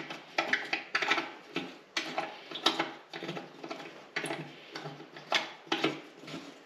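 Irregular small metallic clicks and taps from a thumb screw being turned down by hand on a zero-turn mower's steel cover plate.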